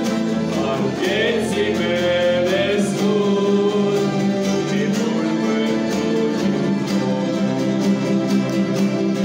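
A mandolin ensemble with an acoustic guitar playing a hymn with regular picked strokes, while voices sing along.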